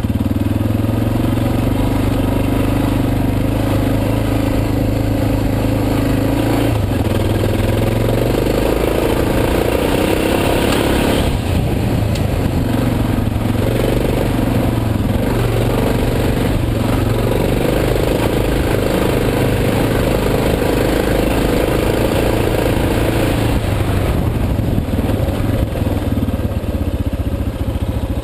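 Suzuki DR650's single-cylinder four-stroke engine running while the motorcycle is ridden on a dirt trail, the engine note rising and falling as the throttle changes.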